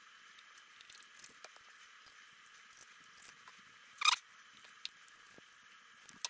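Knife filleting a snakehead fish: faint clicks and small wet scrapes of the blade through flesh and skin, with one louder sharp scrape about four seconds in.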